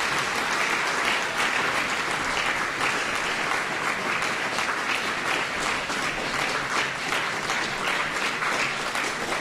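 Audience applauding at the end of a lecture: many people clapping steadily.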